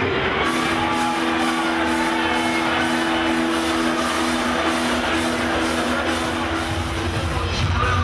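Music played loud over a club sound system: a sustained held chord, with a heavy bass beat building in near the end.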